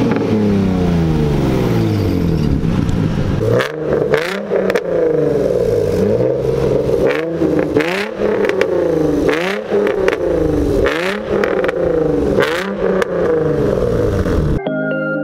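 Nissan VQ35DE 3.5-litre V6 engines revved in place over and over, each rev rising and falling quickly. The revs come first from a 350Z and then from an Infiniti G35 running without catalytic converters on a modified exhaust. Music starts near the end.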